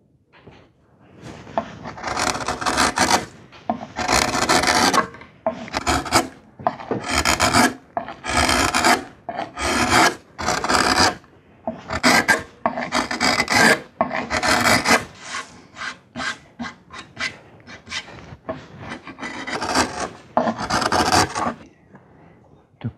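Hand carving gouge cutting shavings from a spruce violin top: a run of scraping strokes, roughly one a second, shorter and quicker for a while in the middle. The top is being carved down to thickness, guided by drilled depth holes.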